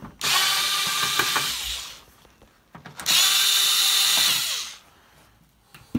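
Cordless drill-driver backing screws out of a sheet-metal cover: two runs of about two seconds each, a second apart, the second winding down in pitch as it stops.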